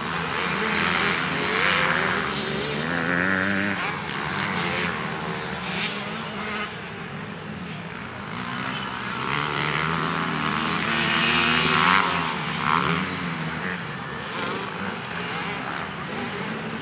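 Several motocross dirt bikes racing on the track, their engines revving up and down through the gears, with two louder passes, about two seconds in and again near the twelve-second mark.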